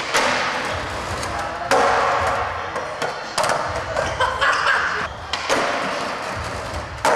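Skateboard hitting and rolling on concrete: about five sharp cracks of tail pops, landings and board slaps, each trailing off into the rumble of wheels. The sound echoes as in a large indoor hall.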